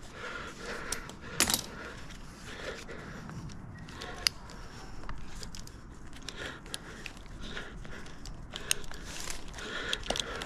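Metal climbing hardware, carabiners and rope-access gear on a tree climber's harness, clinking and jingling in scattered light clicks as he moves his weight from the lanyard onto the climbing line.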